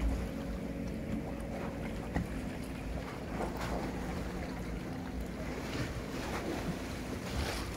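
Wind rumbling on the microphone over choppy sea water, with waves lapping and splashing and a low, steady motor hum that fades about halfway through.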